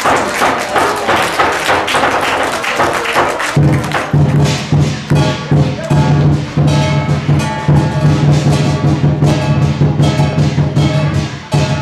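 Lion dance percussion playing fast, dense strikes of drum and crashing cymbals. A deep, sustained low boom joins about three and a half seconds in and carries on under the strikes.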